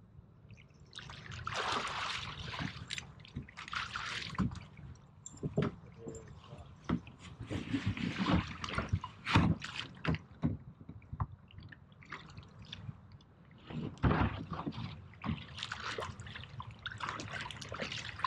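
Water sloshing and splashing in irregular swishes, with a few short sharp knocks among them.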